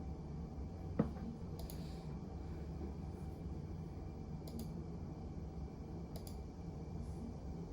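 A single sharp click about a second in, then a few faint light taps, over a steady low hum of room tone.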